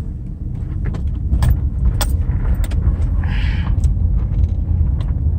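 Car rolling slowly, heard from inside the cabin: a steady low engine and road rumble, with a few sharp clicks and rattles and a short hiss about three seconds in.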